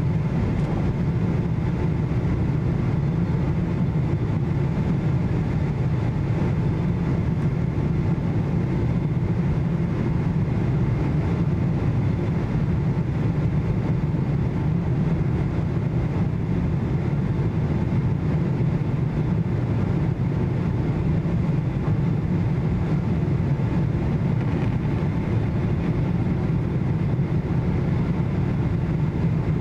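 Steady cabin noise inside a Boeing 777-200 on approach with its wing flaps extended: a low, even rumble of jet engines and airflow with a faint steady whine above it.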